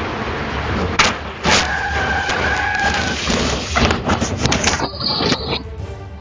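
Road traffic with steady wind noise, sharp knocks about a second in and again half a second later, then a steady pitched tone lasting about a second and a half.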